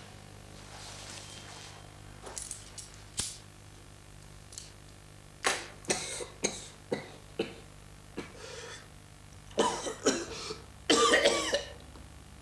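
A man coughing, in two rough bouts near the end, after a run of short clicks and rustles about halfway through.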